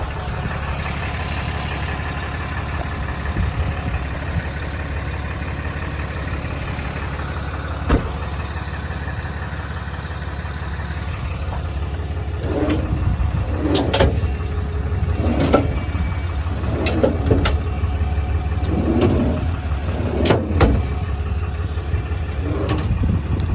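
A vehicle engine idling steadily, with a single sharp click about a third of the way in. From about halfway through come a run of sharp metal clicks and clanks as the service body's toolbox doors and latches are worked.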